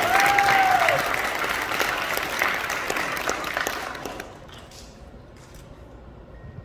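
Audience applauding, with one whooping cheer right at the start. The clapping dies away about four seconds in.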